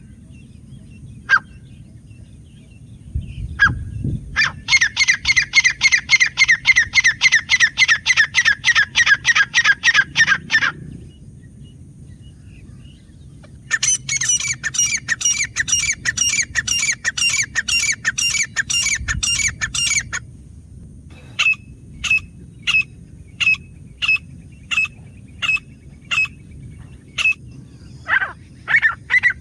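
Grey francolin calling: fast runs of repeated harsh notes, about five a second, in bouts of several seconds with short pauses between them, then a string of single notes spaced well apart before another fast run starts near the end.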